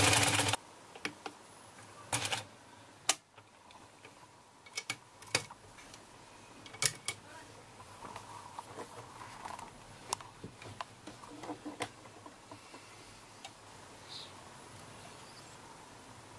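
Butterfly sewing machine running for a moment and stopping about half a second in, followed by scattered light clicks and knocks at irregular intervals.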